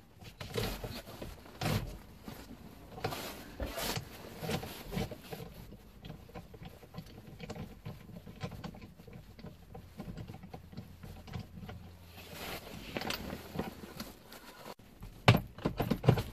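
Socket wrench with an extension loosening the 15 mm steering-wheel bolt of a BMW E60, with scattered metallic clicks and knocks from the tool. About fifteen seconds in come a few louder knocks as the steering wheel is worked off the column.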